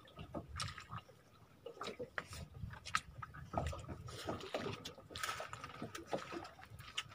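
Quiet eating sounds: chewing, and scattered small clicks and taps of hands picking at food in plastic containers.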